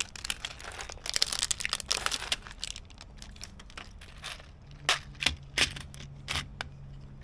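Rustling and crinkling as a plastic screw kit is handled, with small metal screws clicking and rattling against each other and the case, first in a dense run and then as a few separate clicks.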